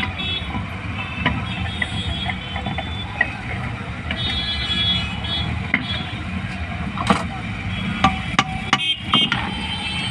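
Steady rumble of passing road traffic, with scattered sharp clicks and taps of small metal tools, several in quick succession near the end.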